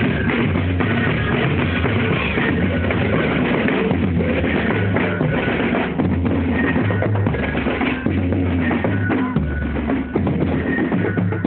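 Live band music with a drum kit playing a steady beat on bass drum and snare over low bass notes.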